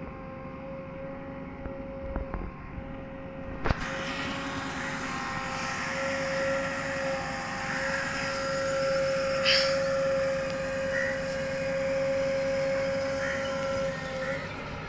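JCB 3DX backhoe loader's diesel engine running under digging load, with a steady high whine over it. There is a sharp click about four seconds in and a brief high squeak about halfway through.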